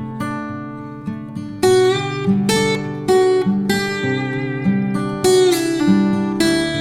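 Background music: an acoustic guitar picking a melody, its notes plucked at a steady pace.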